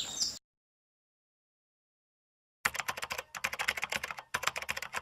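A brief tail of outdoor sound with bird chirps, then dead silence for about two seconds, then computer keyboard typing: a fast run of clicking keystrokes in quick clusters.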